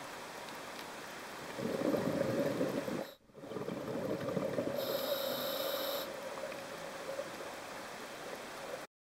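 Scuba diver breathing through a regulator underwater: a rush of exhaled bubbles about one and a half seconds in, then another breath with a short high hiss from the regulator.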